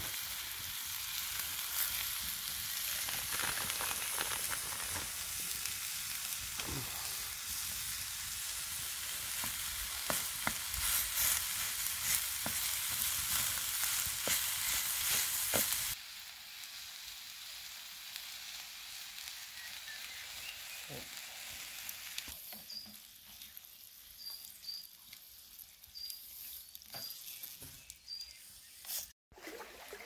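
Diced onion, carrot and celery sizzling and crackling in a stainless frying pan over a campfire. About halfway through it drops suddenly to a quieter, softer sizzle from a pan of mince and tomatoes, with a few faint high chirps near the end.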